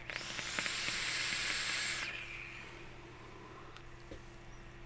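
A draw on an electronic cigarette (vape): a hiss of air through the device lasting about two seconds, then fading away.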